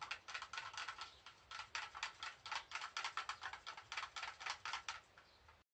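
A stirring stick clicking rapidly against the side of a cup while mixing white acrylic pouring paint, about five light clicks a second, fading near the end.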